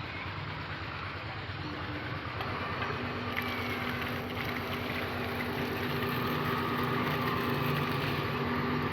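A machine running with a steady hum; a few steady tones join in about two and a half seconds in.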